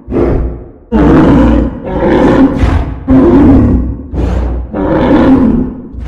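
A run of about six loud, deep animal roars, one after another, each about a second long and fading away: a made-up dinosaur roar for a horned, Triceratops-like dinosaur.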